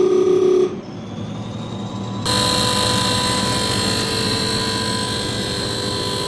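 Diesel injector test bench running a Mitsubishi Fuso Canter common-rail injector through its test modes, a steady machine whir. It drops away under a second in, then cuts back in louder and hissier about two seconds in, with a steady whine, as the bench changes from the idle test to the pre-injection test.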